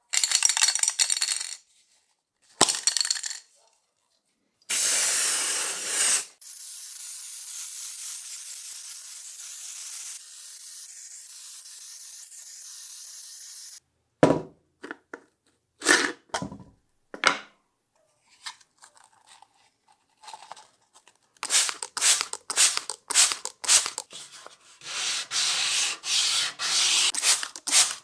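Workshop restoration sounds in separate stretches: short bursts of hissing noise, a long steady hiss, a few scattered knocks, then rapid back-and-forth hand-sanding strokes over the last several seconds.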